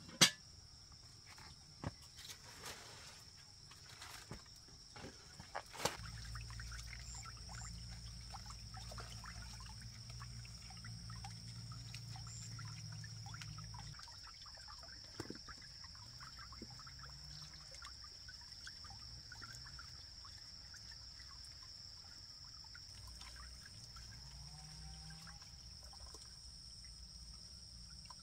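Water trickling and splashing as green vegetables are washed by hand in a plastic basin, over a steady high insect drone. A few sharp knocks sound in the first several seconds.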